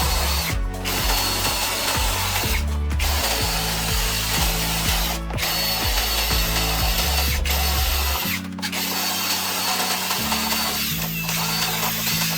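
Electric power tool running with a thin high whine, stopping briefly about five times, every couple of seconds, and starting again each time.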